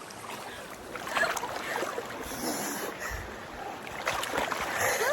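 River water sloshing and splashing around people wading and sitting in a shallow river, with small clicks and a low thud about three seconds in.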